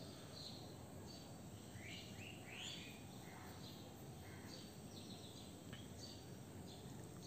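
Faint birds chirping, scattered short chirps over a steady low background noise.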